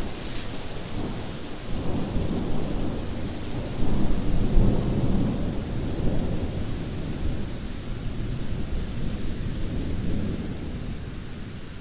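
Rainstorm: steady rain under a low, rolling rumble that swells about four seconds in and eases toward the end.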